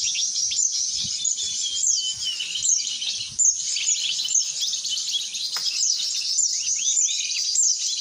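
Dense, continuous twittering of small songbirds: many rapid high chirps and quick down-slurred notes overlapping one another.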